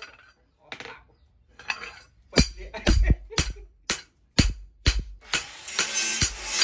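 A wooden mallet striking a steel cleaver blade laid on a metal post: seven sharp, ringing knocks about two a second, after a few lighter metal clinks as the blade is handled. Background music comes in near the end.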